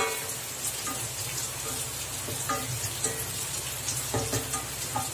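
Chopped onions, curry leaves and slit green chillies frying in oil in a steel pan, sizzling steadily while stirred with a wooden spatula, with occasional light knocks and scrapes of the spatula against the pan.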